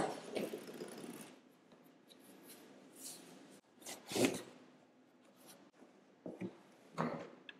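A box cutter slicing the packing tape on a cardboard box. This is followed by cardboard packing inserts being scraped and pulled out of the box in several short rustles, the loudest about four seconds in.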